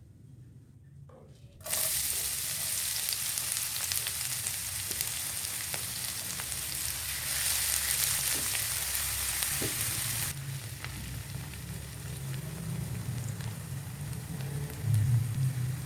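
Food sizzling in hot oil in a pan, starting suddenly as it goes in and being stirred. The sizzle quietens about ten seconds in.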